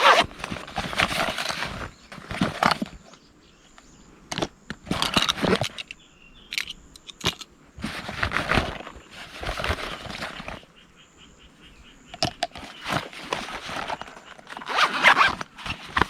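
Camping gear being handled: irregular rustling and scraping with a few sharp clicks, in separate bursts of a second or two.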